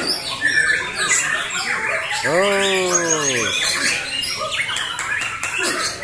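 Several caged white-rumped shamas (murai batu) singing at once, trading dense overlapping whistles, chirps and harsh rapid phrases back and forth. About two seconds in, a person's long drawn-out call, rising then falling in pitch, sounds over them for a second or so.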